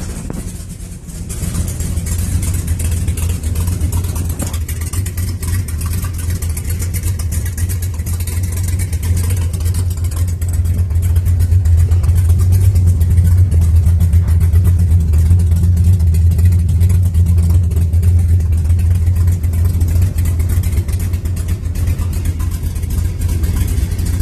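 1970 Dodge Coronet R/T's 440 Six Pack V8 running at idle on its first start with a new starter, a deep steady note. It dips briefly about a second in, and grows a little louder from about ten seconds in.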